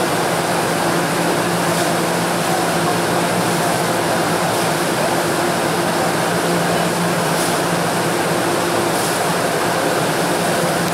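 Steady hum of a Puyuma (TEMU2000) electric train standing at the platform, its onboard equipment such as air conditioning and cooling fans running, with a low drone under an even rushing noise.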